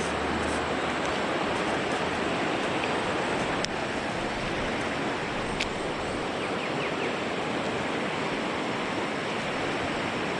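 Steady rush of flowing stream water, with two brief sharp clicks near the middle.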